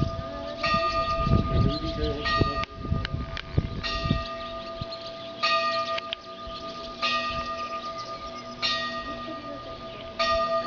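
Church bells ringing the midday peal: a fresh strike about every second and a half, each ringing on into a steady hum between strikes.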